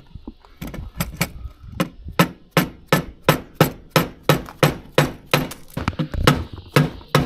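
Small orange-headed hammer tapping repeatedly on a motorcycle top box's mounting plate, about twenty sharp, even strikes at roughly three a second, beginning about half a second in.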